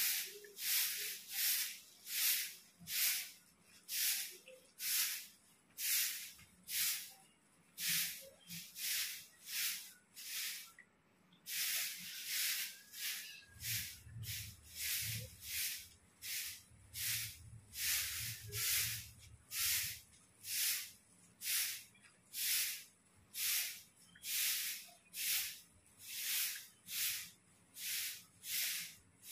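Short straw broom sweeping a concrete courtyard floor: a steady rhythm of brisk swishing strokes, about one and a half a second.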